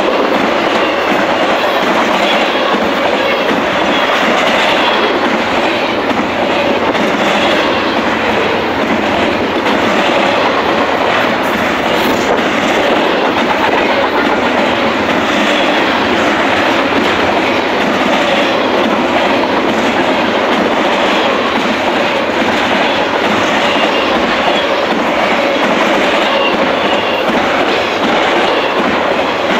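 Intermodal freight train's container well cars and trailer flatcars rolling past close by. Steady, loud wheel-on-rail noise with faint repeated clicks as the wheels pass.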